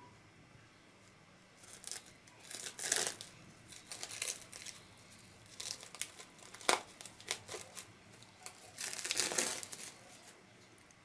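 Thin clear plastic wrap crinkling and tearing as it is peeled off a glass pyramid, in irregular bursts that begin about two seconds in, with one sharp crackle about two-thirds through and a longer rustle near the end.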